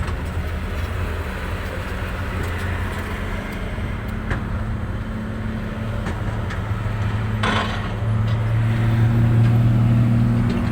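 Komatsu excavator's diesel engine running steadily, growing louder about eight seconds in. A short hiss comes about three-quarters of the way through, along with a few light knocks.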